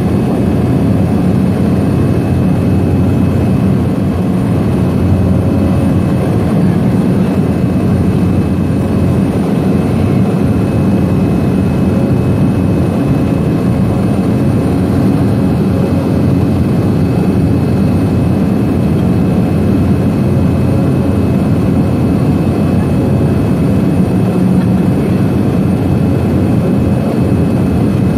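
Seaplane's propeller engine in flight, heard from inside the cabin: a loud, steady drone with a deep rumble and a faint high whine, unchanging throughout.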